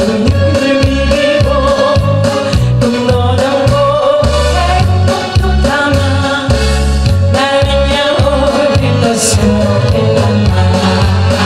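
A woman singing a Korean popular song into a microphone over a loud backing track with a steady beat.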